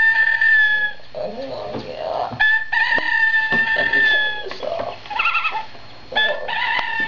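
Rooster crowing from an alarm clock's wake-up sound: long crows repeating about every three and a half seconds, each held on one steady pitch after a wavering start, with shorter sounds in between.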